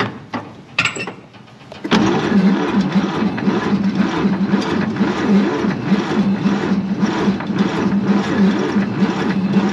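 Starter motor cranking the 1948 Chevy 3100's 216 inline-six, steady and evenly pulsing, starting about two seconds in, without the engine firing. No spark is reaching the plug wire because the ignition points are dirty.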